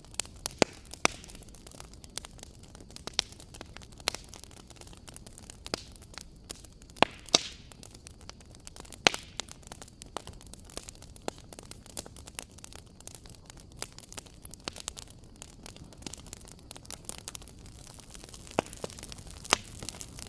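Wood fire crackling in a fireplace: irregular sharp pops and snaps, a few louder ones, over a low steady rush of burning.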